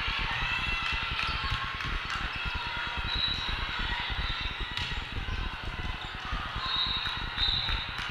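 Volleyball rally in a large echoing hall: sneakers squeaking on the sport court, the ball being struck (one sharp hit about five seconds in), and a steady murmur of players' and spectators' voices.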